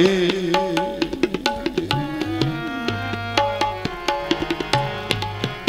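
Tabla and harmonium playing an instrumental passage of Sikh kirtan between sung lines. Quick tabla strokes and deep bass-drum tones sound over held harmonium notes.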